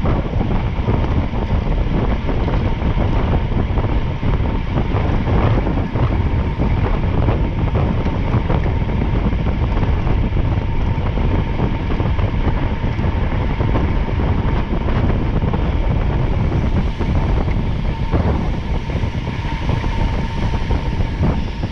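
Wind buffeting the microphone over the steady rumble of a vehicle under way at speed, with a faint steady whine above it.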